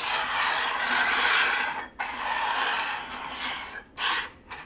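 Small round metal tins sliding and scraping across a tabletop as they are shuffled by hand: a continuous scraping with a brief break about two seconds in, then one short scrape near the end.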